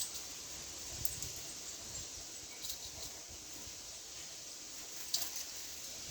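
Small birds (tits and a nuthatch) at a balcony feeding spot: a handful of short, sharp ticks and taps, one about a second in and a louder one near the end, over a steady hiss of breeze and distant city noise.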